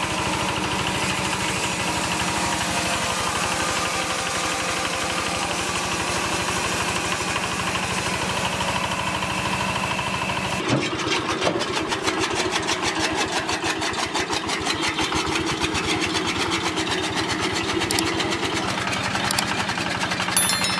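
Maize crusher running steadily while grinding dried maize. About halfway through the sound changes abruptly to a small diesel engine driving a straw and grass chopper, running with a fast, even beat and a few sharp knocks.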